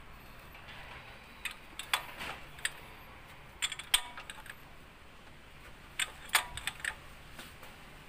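Ratchet wrench clicking as the alternator bracket bolt is tightened: three short runs of clicks a couple of seconds apart.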